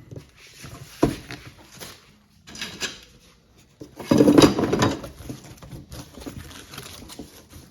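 Items being tossed into a storage box and handled: a single knock about a second in, a short rustle, then the loudest clatter and rustle about four seconds in, followed by lighter shuffling.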